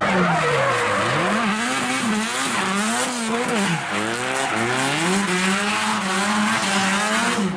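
A drift car, a Nissan S14 Silvia, sliding sideways through a corner. Its engine revs climb and drop again and again over a steady tyre squeal.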